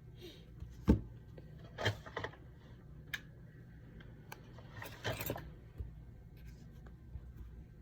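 Small tools and phone parts being handled on a repair bench: a sharp click about a second in, the loudest, then short clattering rattles around two seconds and again around five seconds, with a few light ticks over a low steady hum.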